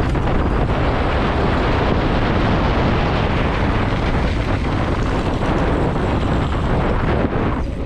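Wind rushing over the camera microphone and the rumble of mountain-bike tyres on a dirt road during a fast downhill run, a loud steady noise with a brief dip near the end.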